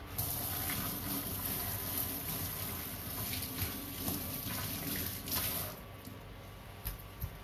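Water running from a kitchen tap, switched on abruptly and shut off about six seconds later, followed by two light knocks near the end.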